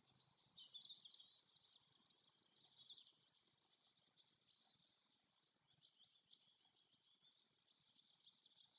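Faint forest birdsong: small birds chirping and twittering in quick, high notes, busiest in the first three seconds and again toward the end.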